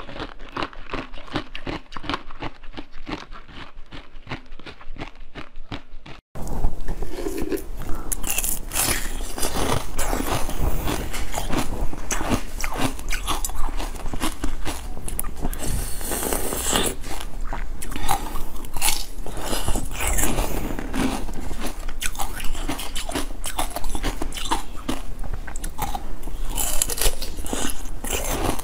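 Close-miked biting and crunching of frozen ice, a dense run of crisp cracks and crackles. The first few seconds, on basil-seed ice pops, are quieter; about six seconds in it cuts to louder, fuller crunching of larger slabs of ice.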